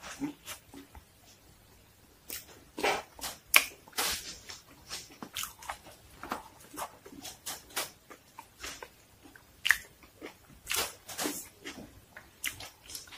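A person chewing food close to the microphone: irregular wet smacks and clicks of lips and mouth, with some crunching bites.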